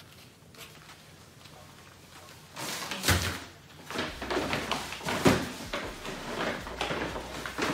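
Handling noise as a box is set down and things are rummaged for low at the side: a sudden thump about three seconds in, then a run of irregular rustles and knocks.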